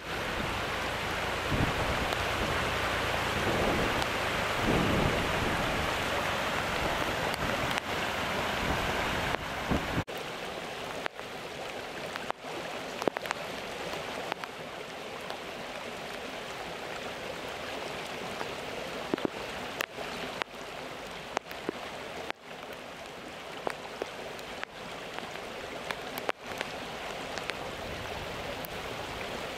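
Floodwater rushing across a road: a loud, steady rush with a deep rumble. About ten seconds in it gives way to a quieter, steady rush of water pouring from a roadside culvert into a ditch, with scattered sharp ticks.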